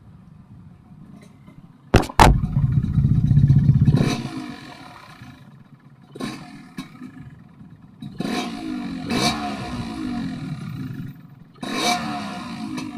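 Yamaha RX-King two-stroke single-cylinder engine running through an underslung aftermarket exhaust while riding, revving up in several bursts with a droning note. The drone comes from the exhaust and is thought to come from a wrongly set header pipe. There is a sharp knock about two seconds in.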